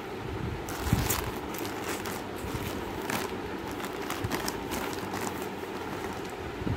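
Clear plastic packaging of folded curtains crinkling and crackling irregularly as it is handled and swapped between hands, over a steady low hum.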